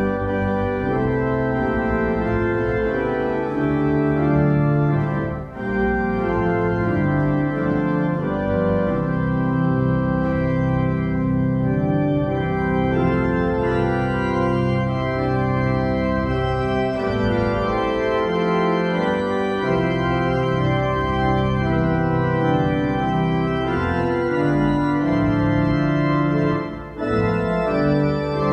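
Church organ playing a hymn tune in full sustained chords, with short breaks between phrases about five seconds in and near the end.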